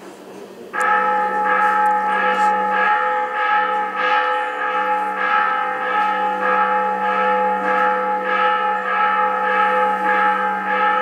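A bell rung rapidly and repeatedly, about two strokes a second, starting about a second in; its tones ring on between strokes into one continuous peal.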